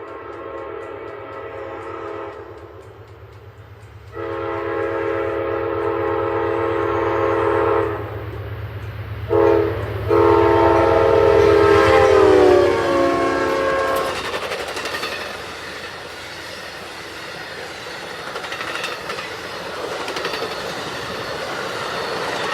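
Amtrak P42DC diesel locomotive's Nathan K5LA five-chime air horn sounding two long blasts, a short toot and a final long blast over the engine's low rumble, the chord dropping in pitch as the locomotive passes. Then the steady rolling clatter of the passenger cars going by on the rails.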